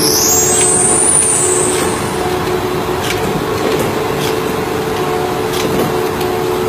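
Machinery running steadily with a constant hum of several tones over a noisy rush, a high squeal rising and falling in the first two seconds, and a few faint clicks.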